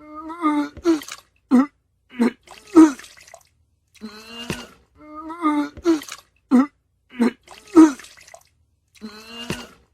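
A person retching and vomiting: a run of short, pitched gagging heaves and groans with wet, splashing sounds. The same sequence of heaves plays twice.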